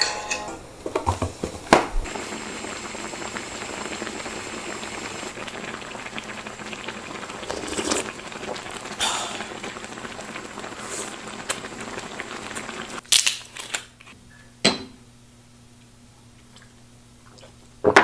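A pot of beef shank and tendon bubbling at a steady boil for about twelve seconds, then a few sharp clinks of utensils against the pot or dishes.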